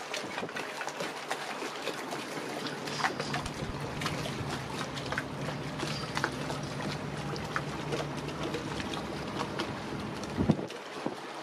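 Water lapping and splashing against a boat's hull, with many small splashes. A boat engine hums steadily from a few seconds in and cuts off near the end, just after a sharp knock.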